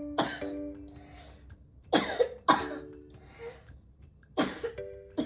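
A child with a cold coughing: four short coughs, with two close together about two seconds in.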